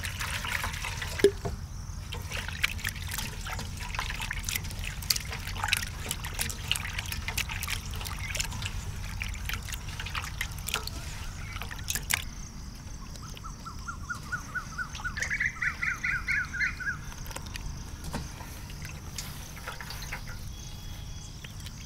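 Water pouring and splashing in a stainless steel bowl as pieces of goat testicle are rubbed and washed by hand, a busy run of small splashes and sloshes that thins out about halfway through.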